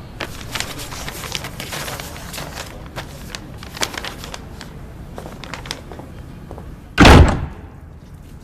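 Scattered light clicks and rustles, then one loud thump about seven seconds in.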